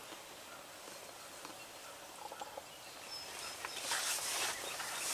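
Quiet outdoor ambience with faint, scattered bird chirps, and a brief rustle of noise about four seconds in.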